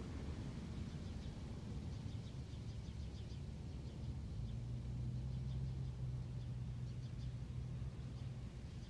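Faint outdoor background: a low rumble, with a steady low hum for a few seconds in the middle, and faint high bird chirps coming in short runs.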